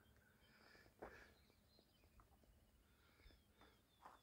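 Near silence outdoors: a few faint soft clicks, and near the end a faint distant bird giving a quick series of short high chirps.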